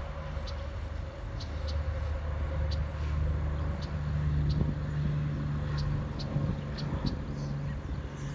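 A motor vehicle's low engine hum, growing louder through the middle and easing off toward the end, with short high chirps repeating about twice a second.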